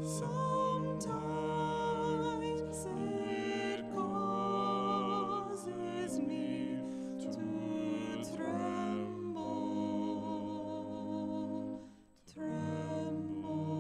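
A woman and a man singing a slow sacred song together in harmony, holding long notes with vibrato; they break off briefly near the end before going on.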